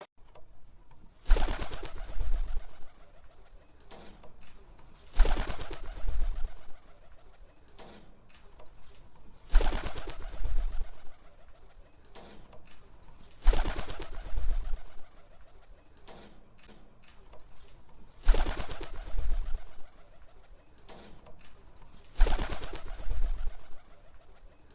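Bird-flying sound effect: a sudden flurry of flapping wings with a low thump, repeating six times about every four seconds.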